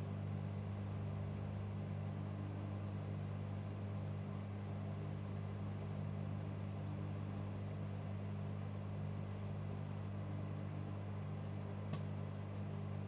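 Microwave oven running, a steady low electrical hum with a light tick near the end.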